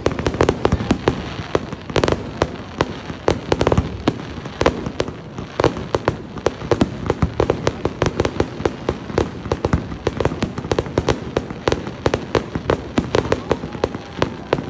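Fireworks display: a dense, irregular barrage of bangs and pops, several a second, from shells launching and bursting.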